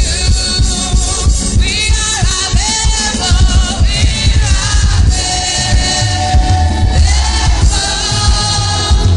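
Gospel worship music: a choir singing over a full band with heavy bass.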